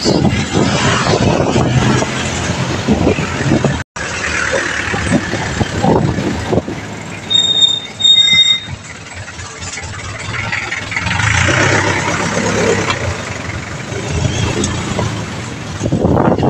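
Street traffic heard while riding: wind buffeting the microphone and the engines of passing vehicles, with a jeepney going by close about eight seconds in. Just before that, a short high-pitched squeal sounds twice, and the sound drops out for an instant about four seconds in.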